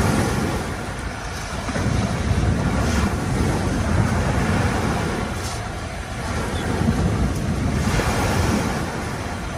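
Wind rumbling on the microphone over the wash of waves on the shore, swelling and easing every few seconds.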